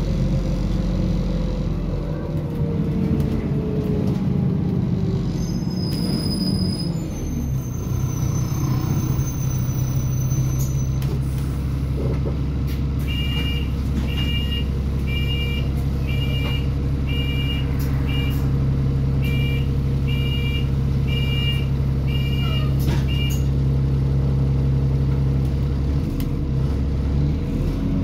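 Bus engine heard from inside the cabin, winding down as the bus pulls up, then idling steadily at the stop, with a brief high squeal as it halts. About halfway through, a run of about ten short two-tone door warning beeps sounds, roughly one a second.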